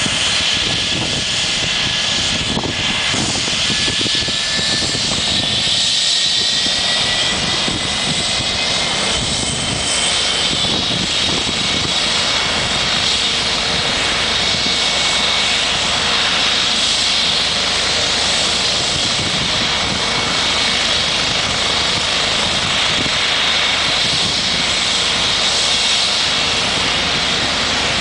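Air ambulance helicopter running on the ground before takeoff: a steady turbine whine with rotor and engine rush. The whine climbs a little in pitch over the first ten seconds or so, then holds steady.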